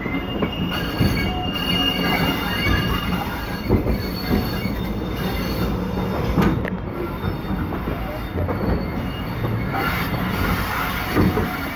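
Passenger train coach wheels rolling slowly through junction trackwork, with a constant rumble. A thin high squeal runs through the first few seconds, and a few sharp clacks come as the wheels pass over rail joints and points.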